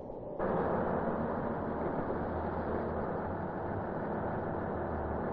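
Steady engine rumble and mechanical noise of heavy transport machinery, starting suddenly about half a second in.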